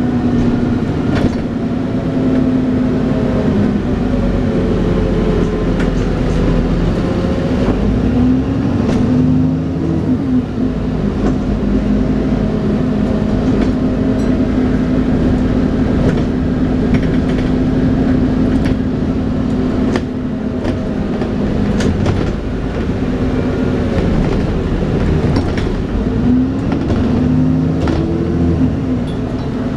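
Dennis Trident 2 double-decker bus running, a steady drone with a whining 'hoover' note whose pitch climbs as the bus gathers speed, about a third of the way in and again near the end. Sharp rattles and knocks are scattered throughout.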